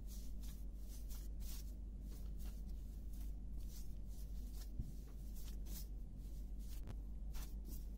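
Hands kneading soft dough in a floured glass bowl: repeated brushing, rubbing and pressing strokes at an uneven pace, with two light knocks about five and seven seconds in, over a steady low hum.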